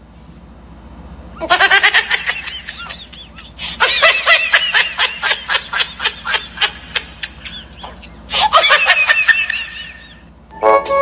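A person laughing in high-pitched, rapid giggles, in three long bouts.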